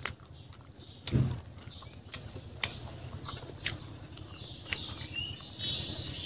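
Close-miked eating sounds: chewing and mouth smacks with scattered sharp clicks, and fingers squeezing and mixing cooked rice. A dull thump comes about a second in.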